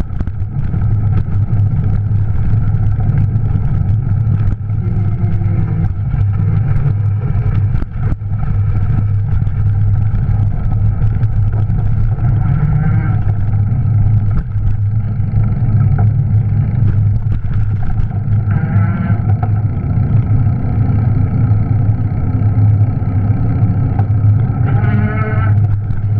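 Juiced RipCurrent S e-bike's electric motor humming steadily, its sound carried straight into the camera through a rigid aluminum mount, over a constant rumble of riding. A few brief higher warbling tones come and go.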